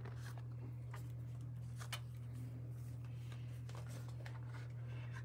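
Faint taps and rustles of a cardboard tarot deck box being picked up and moved, over a steady low hum.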